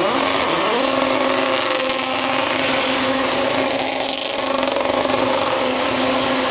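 Race car engine revving up during the first second, then held at a steady high rev while the car drifts.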